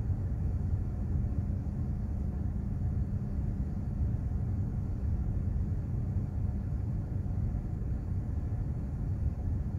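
Container ship under way at sea: a steady low rumble.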